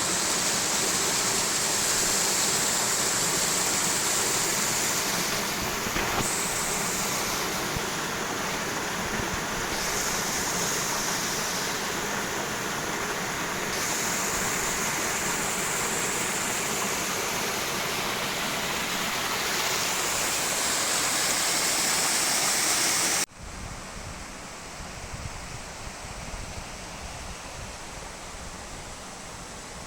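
Steady rush of running water from a forest stream or waterfall. About 23 seconds in it cuts off abruptly and gives way to quieter wind rustle with low rumble from wind on the microphone.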